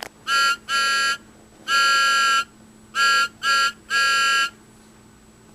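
Steam-engine whistle sound effect played through a toy DVD case's small built-in speaker: two toots of short, short, long, each a two-note whistle chord, with a faint electrical hum under it.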